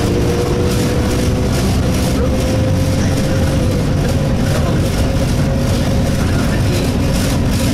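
Inside the cabin of an Alexander Dennis Enviro200 single-deck bus on the move: steady engine and road noise with the annoying vibration sound from the bodywork, and a steady whine that rises slowly in pitch.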